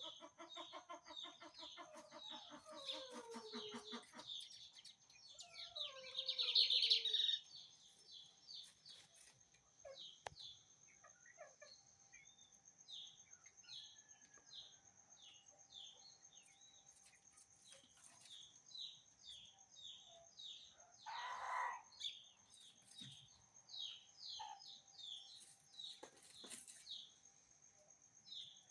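Lined seedeater (bigodinho) singing its 'torneiro' song, long runs of short, quick high notes repeated over and over. A rooster crows with a long falling call in the first few seconds, and chickens call now and then.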